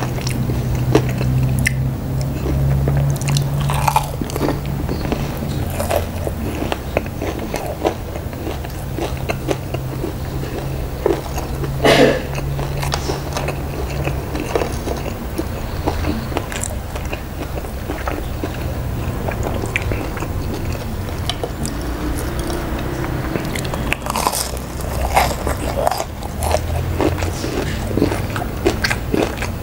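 Crunching and chewing of tahu garing, deep-fried tofu with a crispy, porous batter crust, bitten and chewed in a steady run of crackly crunches. There is a sharp, loud crunch about twelve seconds in and a cluster of crunches near the end.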